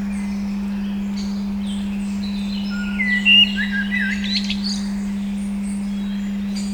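A steady 200 Hz tone hums under birdsong, with scattered chirps and a louder run of sweeping bird calls about three to four and a half seconds in.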